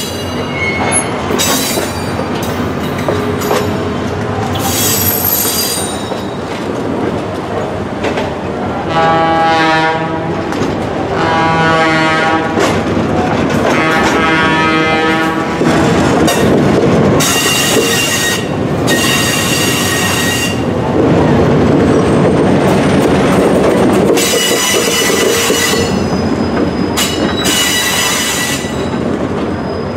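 Passenger train cars rolling past, their wheels squealing on the rails in high-pitched bursts and clicking over the rail joints.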